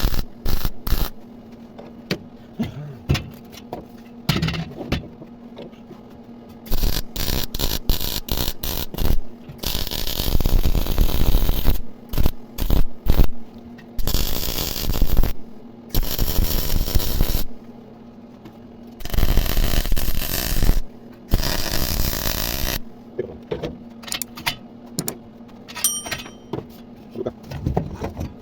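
Welding arc on steel section, crackling in many short bursts of tack welds and several longer runs of a second or two each, over a steady low electrical hum.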